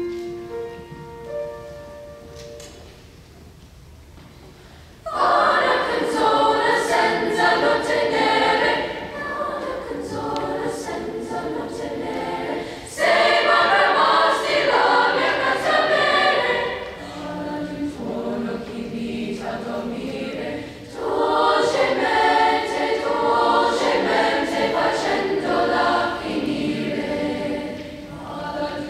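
A few held piano notes give the starting pitches. About five seconds in, a children's school choir enters, singing an Italian madrigal unaccompanied in several parts, in loud phrases with short breathing breaks.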